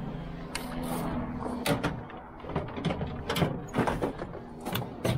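Tools and small metal parts clattering in an open tool chest drawer as a hand rummages through it: a run of irregular clicks and knocks.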